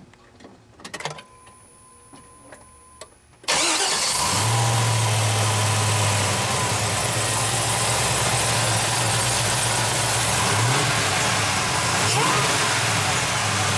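Supercharged GM LSA V8 in a 1973 Oldsmobile 442 restomod starting up. After a few faint clicks, the engine fires abruptly about three and a half seconds in. It runs at a fast idle that settles into a steady, loud idle, with a few short throttle blips near the end.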